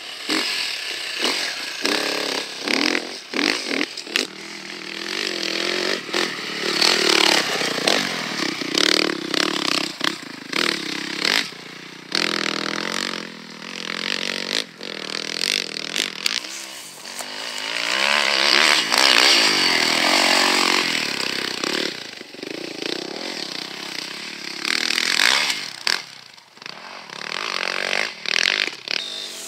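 Enduro dirt bike engines revving hard and easing off again and again as the riders work through the course, with the loudest, longest rising rev a little past the middle.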